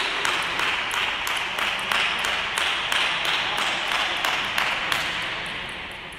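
Spectators applauding a won point in table tennis, with one close clapper's claps standing out about three times a second; the applause fades away near the end.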